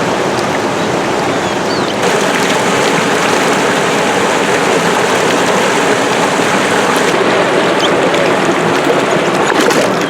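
Rushing river water pouring over a waterfall: a loud, steady wash of white-water noise that gets a little louder about two seconds in.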